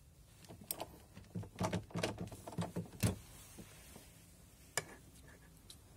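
Irregular metal clicks and knocks of a ratchet and hold-down hardware being worked at a car battery's clamp, clustered in the first three seconds with one more sharp click near the end.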